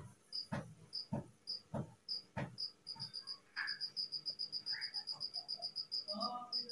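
A cricket chirping steadily in the background. Its short, high chirps come faster, about five a second, through the middle. Four soft scratches come in the first two and a half seconds.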